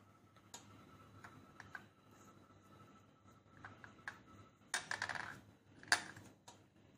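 Scattered light clicks and taps of a seashell and paintbrush being handled on a wooden tabletop while the shell is brushed with white paint, with a short scraping rustle about five seconds in and a sharper click just before six.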